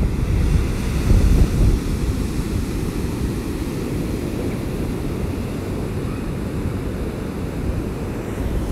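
Strong wind buffeting the microphone in a steady low rumble over heavy surf breaking on the beach, gustier in the first couple of seconds. The rough wind and surf are stirred up by a Category 4 hurricane offshore.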